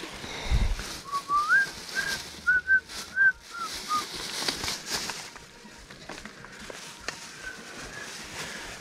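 A short run of clear whistled notes, about eight of them, climbing in pitch and then falling back like a little tune, with two faint notes near the end. Brief rustling and handling noise comes in around the notes.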